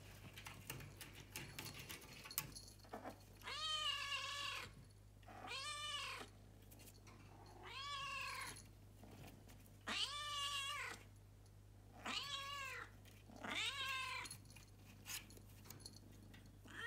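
A Munchkin cat meowing over and over, a call about every two seconds, each one rising and then falling in pitch. These are its morning meows for attention from a crate once the household wakes.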